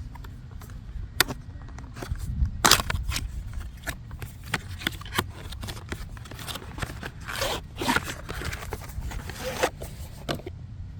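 Hands handling packaging and small parts: an irregular run of scrapes, clicks and rustles, loudest around the third second and again from about seven to ten seconds in, over a low rumble.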